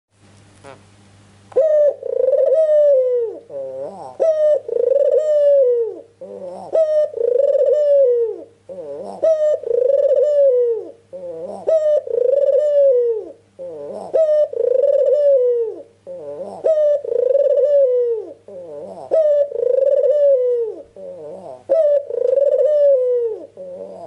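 White Barbary dove (puter) cooing over and over, about nine long rolling coos, each opened by a short note and falling away at the end, roughly one every two and a half seconds. This is a full-voiced 'gacor' coo of the kind played as a lure to make other puter doves answer. A faint steady hum runs underneath.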